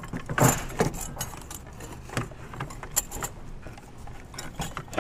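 Scattered metallic clinks and knocks as a turbocharger is twisted and rotated up out of a 6.0L Powerstroke diesel's engine bay, its housing and fittings tapping against surrounding parts. The loudest knocks come about half a second in and about three seconds in.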